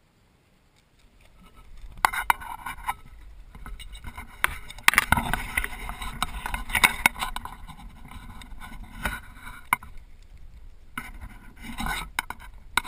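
Water splashing and sloshing against the side of a kayak as a hooked ray is drawn alongside and grabbed at the surface, with knocks and scrapes from handling. It starts about two seconds in, is busiest through the middle and comes in a last burst near the end.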